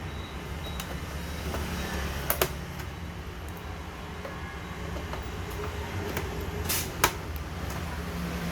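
DDR3 ECC RAM modules being pressed into workstation motherboard slots, giving a few sharp clicks as they seat and their latches close, over a steady low hum.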